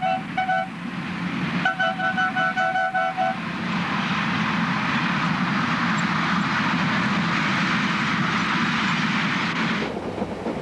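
Diesel locomotive horn sounding in strings of short, rapid toots, warning cattle standing beside the line, then a pause and another string of toots. Then the train passes close by with a loud, steady rushing noise of engine and wheels, which drops to quieter running inside a carriage near the end.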